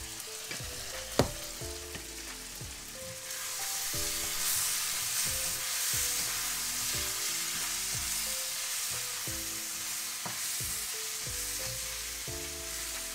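Chicken pieces sizzling in a hot wok while they are stirred and tossed with a spatula. The sizzle gets louder a few seconds in. There is one sharp knock about a second in.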